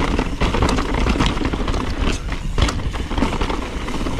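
Mountain bike rolling over rocky dirt singletrack: knobby tyres crunching over stones, with repeated clicks and clatter from the bike. A heavy low wind rumble on the action-camera microphone runs under it.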